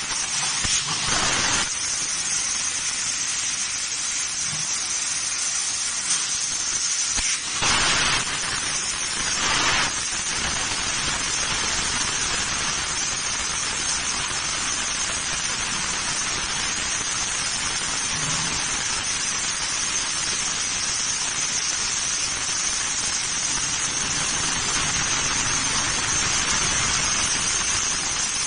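4 kW fiber laser cutting head cutting 12 mm stainless steel plate: a steady, loud hiss of the assist-gas jet through the nozzle, with a steady high band on top. There are three brief louder gusts in the first ten seconds.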